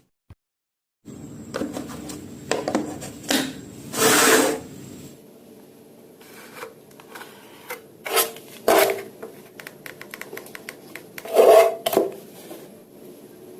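A hand tool scraping along wood in a series of uneven strokes, the loudest and longest about four seconds in and again near eleven seconds. The first second is silent.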